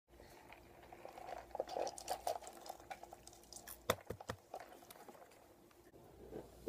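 Close-up eating and drinking sounds: chewing and crunching food, and sipping a drink through a straw from a fast-food cup, with small clicks throughout and one sharper click about four seconds in.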